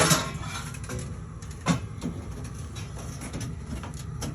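A sharp knock with a brief rattle, then a second, lighter knock a little under two seconds later, over a steady low hum.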